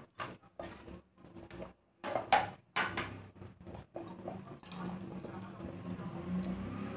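Scattered clinks and knocks of a steel cooking pot and utensils, irregular with short gaps, followed by a steady low hum that grows louder near the end.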